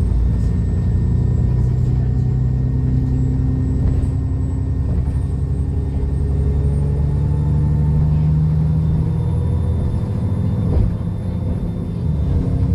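Diesel bus engine pulling hard up a hill, its note climbing slowly, with a high turbo whistle over it that rises and then falls away near the end. About eleven seconds in there is a brief dip in the engine sound.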